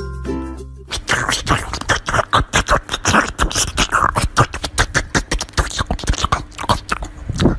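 Rapid beatbox-style vocal clicks, pops and mouth sounds, following the last notes of a short musical jingle in the first second.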